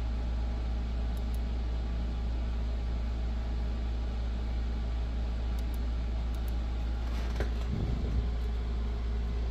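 A steady low machine hum, even in level throughout, with a brief low bump and rustle about eight seconds in.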